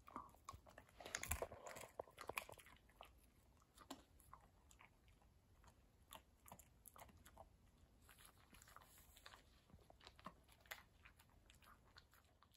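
A greyhound crunching and chewing a hand-fed dog treat: a faint run of small crisp crunches, busiest in the first couple of seconds.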